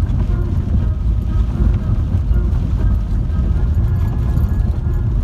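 Steady low rumble of a car driving, tyre and road noise heard from inside the cabin on a wet dirt road. Faint music runs underneath.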